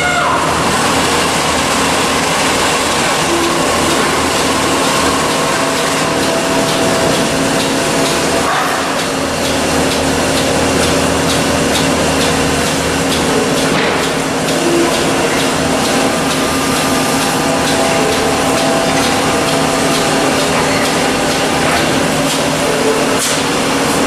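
Haas SL-20 CNC lathe running: a steady machine whir with several steady tones held under it, unchanging in level.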